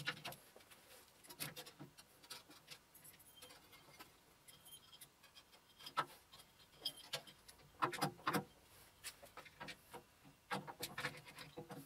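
Faint handling noise of a plastic T-link belt being worked through a lathe headstock: soft rubbing with scattered light clicks of the links against metal, a few sharper clicks in the second half.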